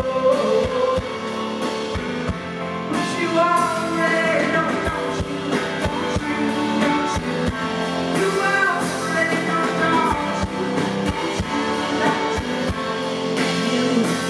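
Live rock band playing through a concert PA, heard from the crowd: a woman singing over drum kit and keyboard.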